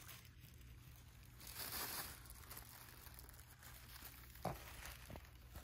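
Faint rustling and crinkling of tissue paper as a Shih Tzu pushes her head through it, with a couple of short ticks near the end.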